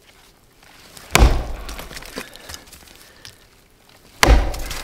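Gränsfors Bruk Small Splitting Axe chopping into the trunk of a standing dead tree: two strikes about three seconds apart, the first a little over a second in, each with a short decaying tail.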